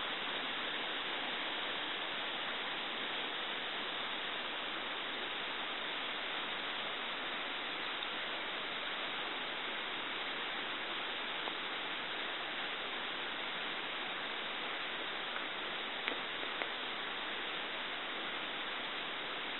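Steady, even hiss of the recording's background noise, with two faint clicks about sixteen seconds in.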